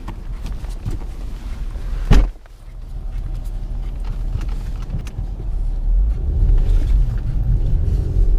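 Car driving slowly along a snowy forest track: a steady low engine and tyre rumble, with one sharp thump about two seconds in. The rumble grows louder near the end.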